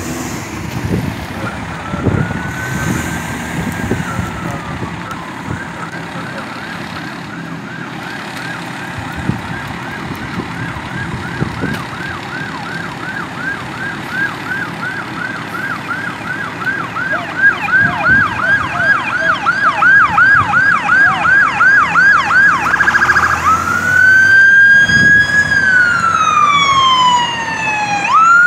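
Ambulance's electronic siren approaching and growing louder: a slow rising and falling wail, then a long run of fast yelp sweeps at about two and a half a second that quicken briefly, then long slow wails again near the end.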